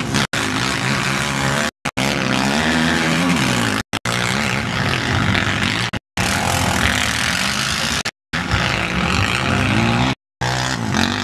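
Racing quad engines revving on a snow track, their pitch repeatedly rising and falling as they accelerate and back off. The sound cuts out completely for a moment about every two seconds.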